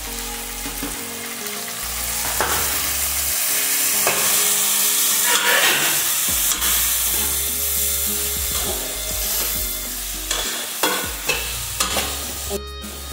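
Onion, tomato and spices sizzling in oil in a metal kadhai, stirred and scraped with a perforated metal ladle. The ladle knocks and clinks against the pan several times, most often near the end.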